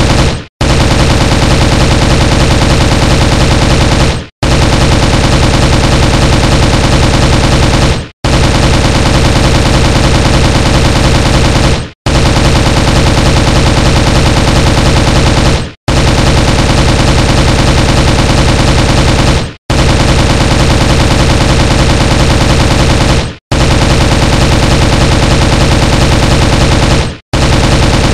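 M16 rifle firing on full automatic: long runs of rapid shots, each about four seconds long, broken by brief drops to silence, seven times in all.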